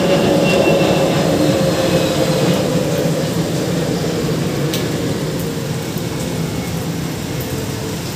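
Rain falling steadily over a low mechanical drone that slowly sinks in pitch and grows a little quieter.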